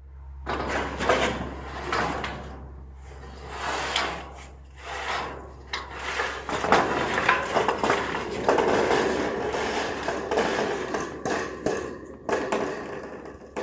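Corrugated steel roofing panel being pushed up along leaning wooden boards, scraping and rattling in irregular surges with sharp metallic clicks and knocks. It gets busier about halfway through.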